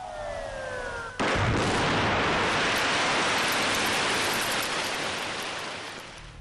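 A falling tone dies away, then about a second in the blast of an ammonium nitrate and fuel oil charge sets off a loud, steady rushing roar that holds for about four seconds and fades near the end.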